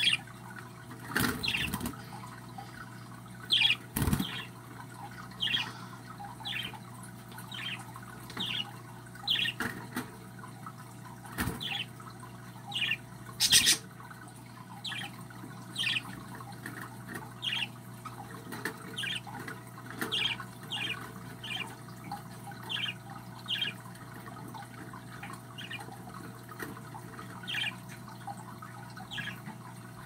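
Baby budgerigar chicks peeping: short, high chirps falling in pitch, about one a second, typical of nestlings begging. A few sharp knocks come in between, the loudest about fourteen seconds in.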